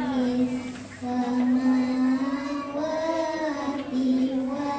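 A child's voice singing a slow melody with long held notes.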